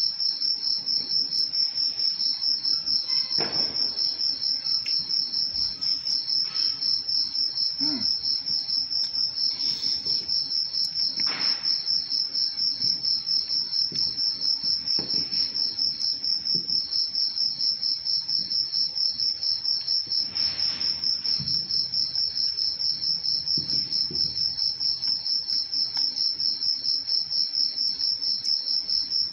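A cricket chirping steadily, a high, evenly pulsing song of about three to four pulses a second, with a few faint clicks and knocks under it.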